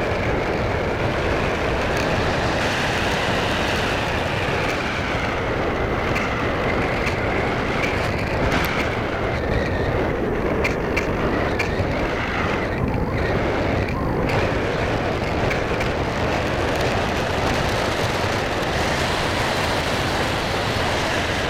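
Wind rumbling steadily on the microphone, with the faint whine of an electric RC plane's motor drifting slowly up and down in pitch as it flies.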